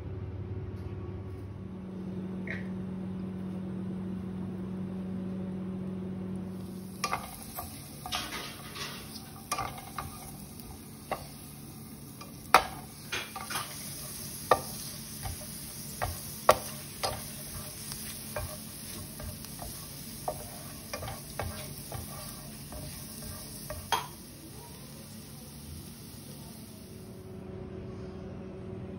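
Chopped onion and minced garlic sizzling in oil in a pan while a spatula stirs them, with sharp clicks and scrapes of the spatula against the pan. The sizzle starts about a quarter of the way in and stops shortly before the end; before it there is a low steady hum.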